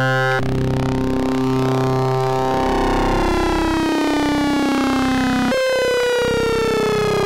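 Modular synthesizer drone from wave-spliced Rossum Trident oscillators, its timbre sweeping as the sub-oscillator pulse width is animated. The tone changes abruptly about half a second in, then its overtones glide slowly downward, with a short break about five and a half seconds in.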